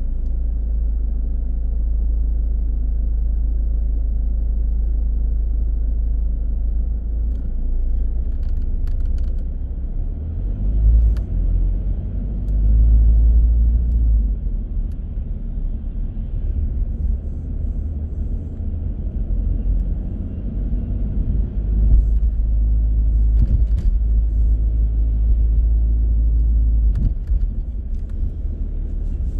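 Car driving on city streets: a steady low rumble of engine and road noise, swelling louder twice near the middle, with a few faint clicks.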